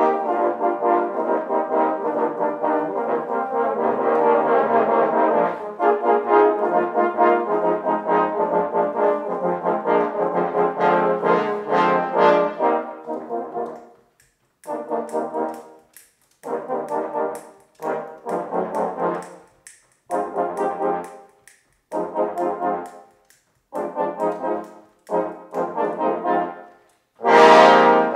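Eight-part trombone ensemble, one player multitracked, playing held chords for about the first half. Then come short, detached chords separated by brief silences, and a loud full-ensemble entry near the end.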